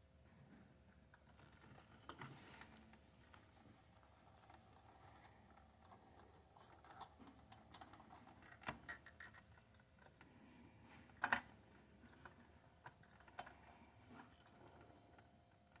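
Faint clicks and scrapes of a small flathead screwdriver turning a mounting screw into a power amplifier output IC's heat sink. A few sharper clicks stand out, the loudest about eleven seconds in.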